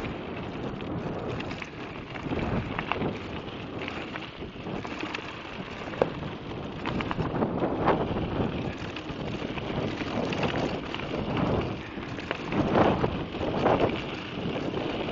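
A mountain bike ridden over a rough gravel moorland track: tyres crunching on stones and the bike rattling, a continuous crackle of irregular clicks that gets louder in a few swells near the end.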